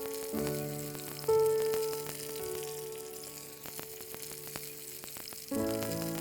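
Food sizzling and crackling as it fries in a hot pan, over soft background music with sustained notes.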